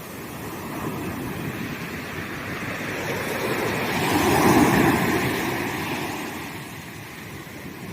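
Sea waves breaking on a sandy beach: the surf swells, one wave crashes about halfway through, and it washes back down.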